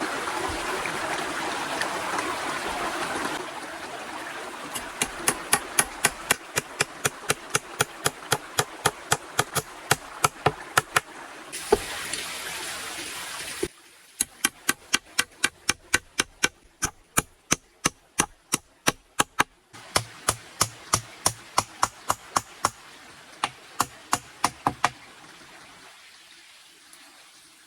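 Running water at the start, then rapid, even strikes of a hand tool on wood, about three a second, in several short bursts with abrupt cuts between them.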